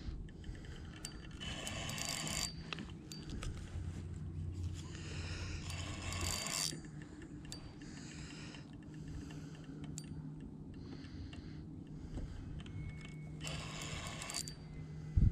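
Fishing reel ratcheting in three short rasping bursts of about a second each, as a big fish is fought on the line.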